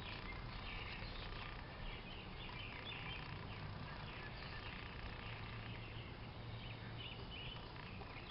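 Faint, scattered bird chirps over low, steady background noise.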